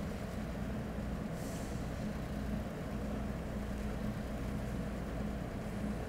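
Steady low hum of room tone in a large hall, with a faint soft rustle about a second and a half in.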